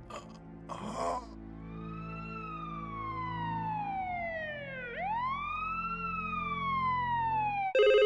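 A siren wailing, its pitch sliding up and down in two slow sweeps, over a low steady drone. Near the end a short, loud electronic ring cuts in.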